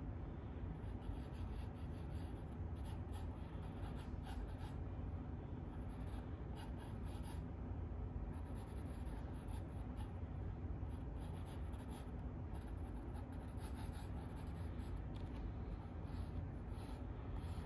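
Drawing on sketchbook paper: a drawing tool scratching in short, irregular strokes, over a steady low background hum.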